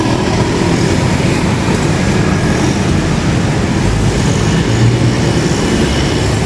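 Steady, loud rumble and noise of a moving vehicle, running evenly with no distinct knocks or changes.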